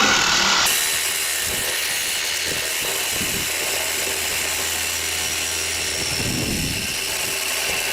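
Reciprocating saw with a carbide-tipped blade running steadily, cutting through metal on an HVAC heater blower to free the motor.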